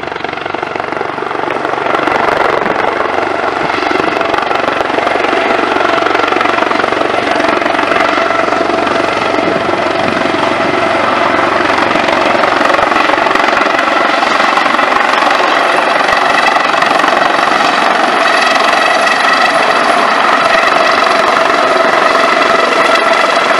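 Medical helicopter coming in to land low overhead: rotor noise with a whine of several steady tones, growing louder over the first two seconds and then holding loud.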